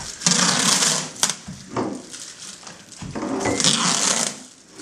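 Pre-taped plastic masking film being unrolled along a cupboard top: the tape peels noisily off its roll in two stretches of about a second each, with a sharp click between them.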